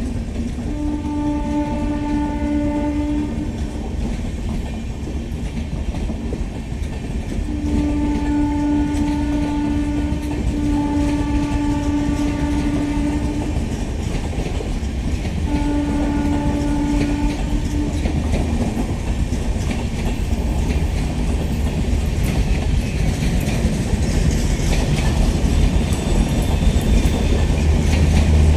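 WAP-7 electric locomotive sounding its horn in four long blasts, the middle two almost back to back, over the rumble and clatter of train wheels on the track. The wheel noise grows louder toward the end as the train comes closer.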